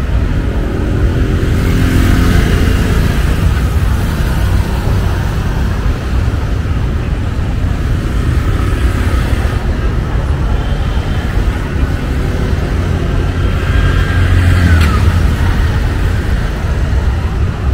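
City street traffic: auto-rickshaws (tuk-tuks), cars and motorbikes running past with a steady low rumble, and faint voices of passers-by. A brief falling squeak about fifteen seconds in.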